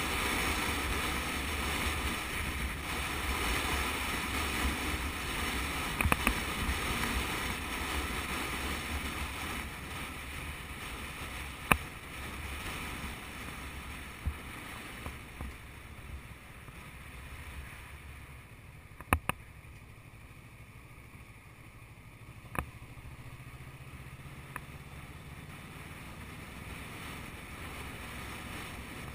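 Wind rushing over a motorcycle-mounted camera with the bike's engine running underneath, the rush easing off about two-thirds in. A few sharp clicks and knocks, and a low engine note that rises slightly near the end.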